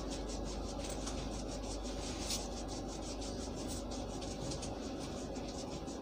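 Hands rubbing briskly over a cloth-covered back during a massage: a quick, rhythmic swishing of several strokes a second, with one louder stroke a little over two seconds in.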